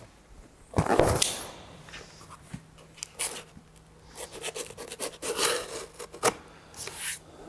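A cardboard box set down with a thump about a second in, then a knife slitting the packing tape along the top of the box in short scratchy, scraping strokes, with a sharp click near the end.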